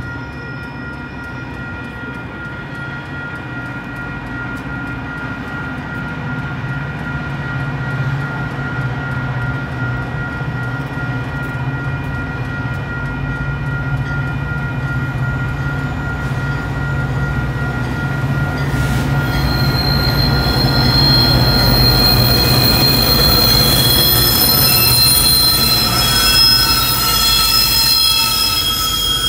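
Metra diesel commuter train approaching and passing. The engine's low hum grows steadily louder, and the steel wheels give off several high, steady squeals that multiply and get louder in the second half as the train draws alongside.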